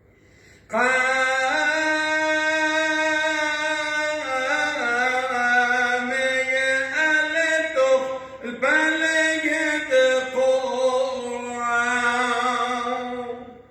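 A man chanting a Syriac church hymn in long, ornamented phrases, starting about a second in, with a short break for breath near the middle.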